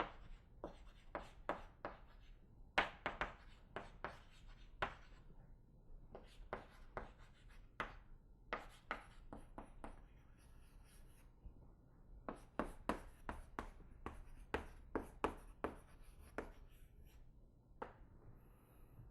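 Handwriting with a writing tool on a hard surface: runs of sharp taps and strokes in clusters with short pauses, the densest run about two-thirds of the way through, over a faint low hum.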